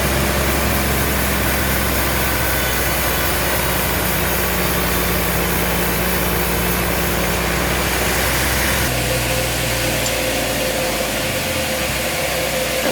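A large engine running steadily with a constant low hum. The hum shifts about nine seconds in, and its deepest part drops away near eleven seconds.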